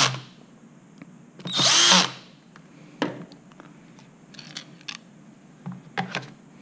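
Cordless drill-driver driving screws into a plastic handle grip in two short runs of the motor: one ending just as the sound begins and another of under a second about a second and a half in. A sharp click and a few light knocks of plastic parts follow.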